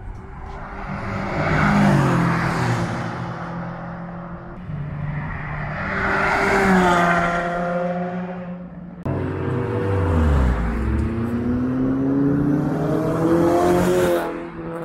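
Sports cars at full throttle on a race circuit: two cars pass one after the other, each engine note swelling and dropping in pitch as it goes by. Then another engine revs up, its pitch climbing steadily, until the sound cuts off suddenly near the end.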